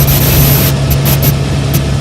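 Helicopter in flight heard from inside the cabin: a loud, steady drone of turbine and rotor with a constant low hum over rushing air noise.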